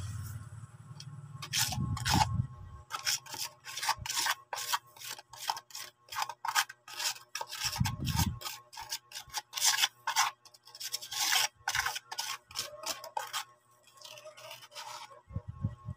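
Scraping and rubbing of a stick stirring cement mix in a plastic tub: quick gritty strokes, about two a second, with a couple of dull bumps.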